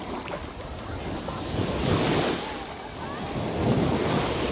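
Small lake waves washing onto a sandy shore, with wind buffeting the microphone; the wash swells louder about two seconds in and again near the end.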